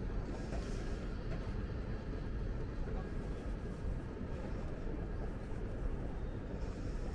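Airport terminal hall ambience: a steady low rumble that does not change, with a faint murmur of voices.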